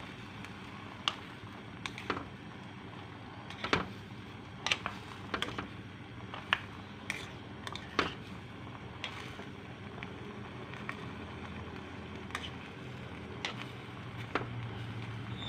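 Irregular short clicks and knocks, about a dozen, over a steady background hum.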